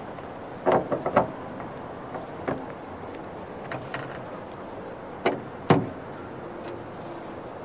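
Sharp clicks and knocks from hands working a wall-mounted electricity meter cabinet, its door and cable. There is a quick cluster of three about a second in, a few lighter ones after, and the two loudest a little past halfway.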